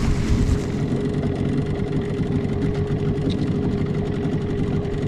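A boat's outboard motor running steadily: a low rumble with a steady hum over it.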